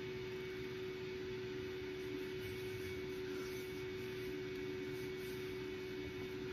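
Steady whir of an electric fan running on high, with a constant low hum.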